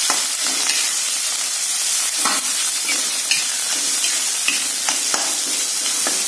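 Shrimp and garlic sizzling in hot oil in a wok over a high flame, a steady hiss, with a metal spatula scraping and tapping against the pan at irregular moments as the food is stir-fried.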